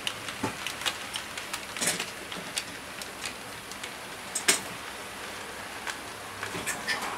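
HO-scale model freight train of refrigerated vans rolling past, its metal wheels clicking irregularly on the track joints, one sharper click about four and a half seconds in, over a faint steady running hiss.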